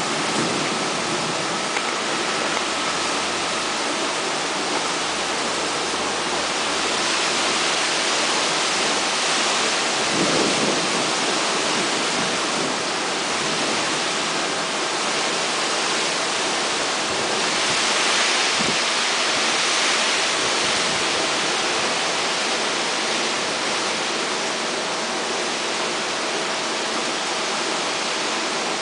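Heavy rain pouring down, a steady hiss that swells louder twice, about a quarter of the way in and again just past the middle.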